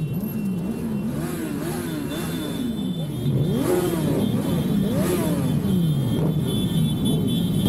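Motorcycle engines being revved over and over, the pitch climbing and dropping in quick repeated throttle blips, sometimes two bikes at once. It gets louder about three seconds in.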